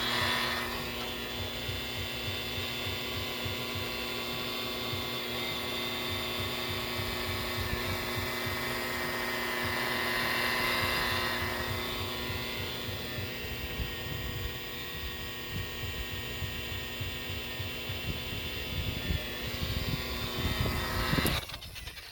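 Handheld electric power tool running steadily with a constant motor whine as it abrades a fiberglass boat's gelcoat, a little louder around the middle, then switched off abruptly about a second before the end.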